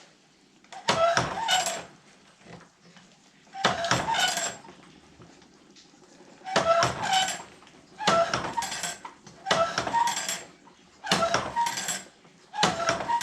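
Hand-lever bandsaw-blade tooth setter being cycled tooth by tooth, giving seven clusters of ringing metal clanks and clicks, roughly one every second and a half. There is a longer pause around the middle.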